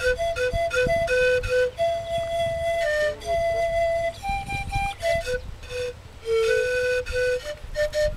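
Two sikus (Andean panpipes) played together in sikuri style, the two players trading notes in turn to build one breathy melody. Mostly short notes hopping between a few pitches, with a couple of longer held notes about two and three and a half seconds in.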